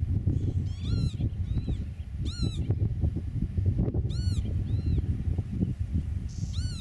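Eurasian oystercatcher calling: a series of short, high piping notes, each rising and then falling in pitch, about one a second, some louder and some fainter. Under the calls runs a constant low rumble.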